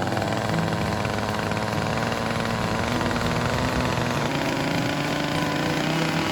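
Two-stroke carving chainsaw running and cutting into the wood, its engine pitch shifting a few times as throttle and load change.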